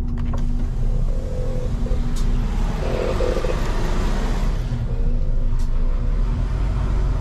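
Mercedes truck's diesel engine running steadily at low speed in manual gear on a steep, twisting mountain road. A rushing hiss swells for about two seconds in the middle.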